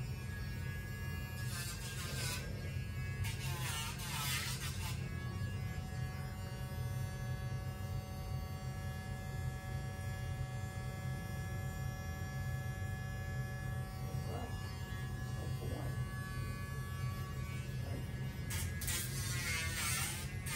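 Dremel rotary tool running with a steady low buzz while it grinds a dog's toenails.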